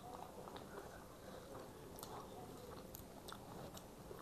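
Quiet chewing and biting of people eating chicken chilli and chowmein, with a few faint, sharp clicks.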